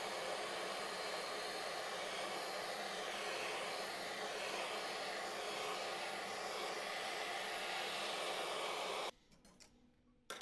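Handheld gas blowtorch burning with a steady, even hiss while its flame heats a metal stove pot-stand ring. The hiss cuts off abruptly about nine seconds in, followed by a few faint clicks and a short knock near the end.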